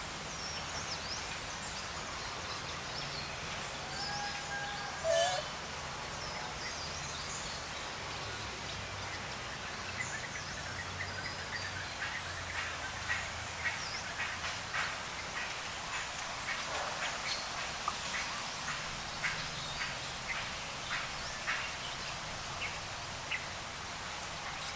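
Outdoor ambience: a steady background hiss with scattered high bird chirps. About four seconds in comes a short held animal call ending in a falling note. From about ten seconds on there is a run of short, sharp chirps and clicks.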